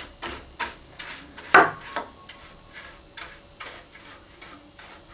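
A dry bristle computer brush scrubbing over the plastic front of a desktop PC case in quick, short strokes, about three a second, while drying and buffing it. One stroke about a second and a half in is louder, and the later strokes are fainter.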